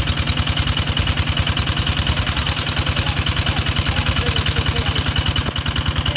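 Small engine of a water pump draining the pond, running steadily with a rapid, even beat.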